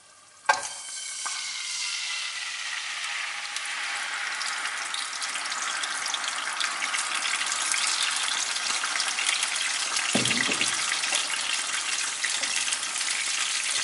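Tomato passata poured into a pan of hot olive oil and garlic: it hits the oil with a sudden sizzle about half a second in and then fries with a steady, loud sizzle. A short low thump comes about ten seconds in.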